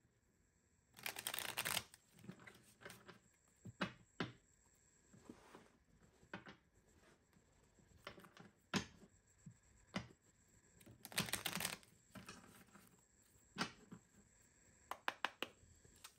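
A tarot deck being shuffled and handled on a table. There are two short bursts of shuffling, about a second in and again about eleven seconds in, with scattered soft taps and clicks of the cards in between.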